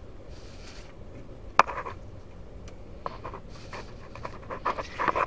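Handling noise from working on a mobility scooter's exposed front wiring: one sharp click about a second and a half in, then a run of small clicks and rattles that grows busier toward the end, with breathing between.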